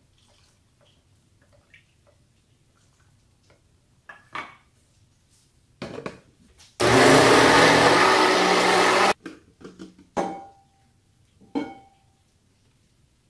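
Personal blender running for a little over two seconds, grinding onion, Asian pear and soy sauce to a purée, then cutting off abruptly. Short knocks and clinks come before and after as the blender cup is handled, one of them ringing briefly.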